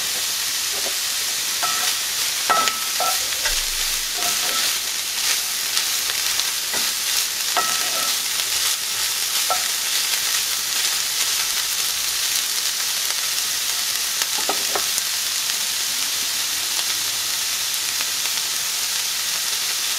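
Shredded chicken and onions sizzling steadily in oil in a cast-iron skillet, with a wooden spoon scraping and knocking against the pan now and then as it is stirred.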